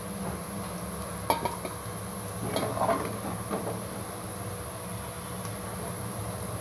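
Diced potatoes sizzling steadily in hot oil in a pot, with a plastic ladle knocking and scraping against the pot a few times as the fried pieces are lifted out: a sharp knock about a second in and a short clatter around three seconds.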